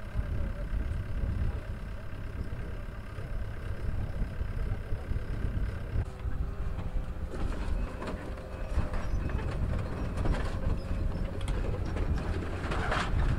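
Wind noise on the microphone over the engines of heavy equipment, an excavator and a compact track loader, running steadily. From about halfway on come repeated clanks and rattles as wreckage of lumber and sheet metal is moved, busiest near the end.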